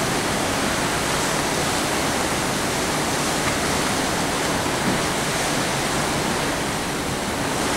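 Steady, even rushing noise on the open deck of a cruise ship under way, the wind and water noise of the moving ship.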